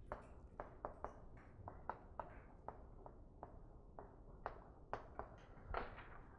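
Chalk writing on a blackboard: a run of faint, irregular clicks and light scratches as each letter is written.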